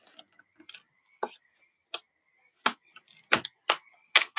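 Sharp plastic clicks and snaps, about eight at uneven intervals and louder toward the end, as a plastic card is worked along the seam of a laptop's plastic bottom cover, popping its retaining clips loose.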